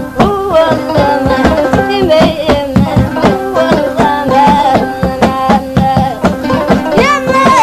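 Mauritanian traditional music: a solo voice sings a gliding, ornamented melody over sustained instrumental tones and a steady beat of drum strikes.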